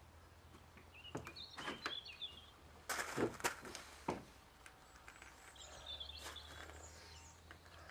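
Knocks and clunks of an outboard motor being shifted about on a van's wooden floor, loudest in a quick cluster about three seconds in, with birds chirping in the background.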